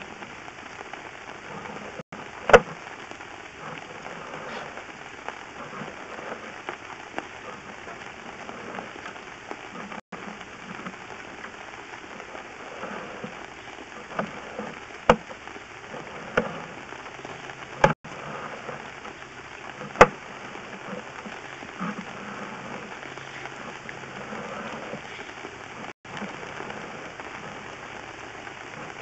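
Sewer camera push cable being fed by hand through a cast iron sewer line: a steady crackling hiss with several sharp clicks and knocks, loudest about two and a half seconds in and again about twenty seconds in.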